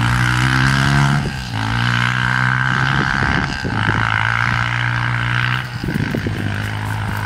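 Dirt bike engine running at a steady pitch, with short breaks in the note a little over a second in, at about three and a half seconds and near six seconds.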